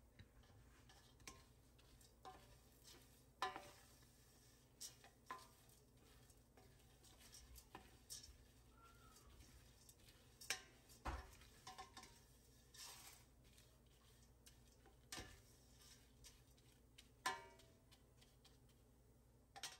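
A spoon stirring old-fashioned oats toasting in butter in a pan: faint, irregular scrapes and taps of the spoon against the pan, a few of them louder clacks.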